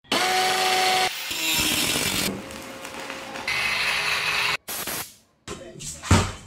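Short, cut-together bursts of cordless power tools running, beginning with an INGCO cordless drill whining as it bores into a wall. A single loud thump, a basketball bouncing on concrete, comes near the end.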